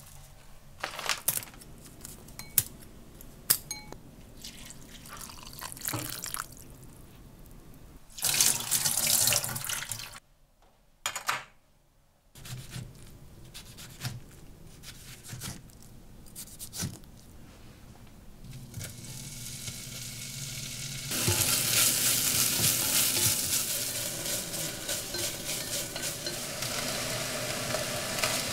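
Kitchen sounds in sequence: light clicks and rustling of dried pollock shreds handled in a glass bowl, tap water running briefly, a few knife cuts on a wooden cutting board, then kimchi starting to sizzle as it is stir-fried in a pot, a steady hiss that becomes the loudest sound.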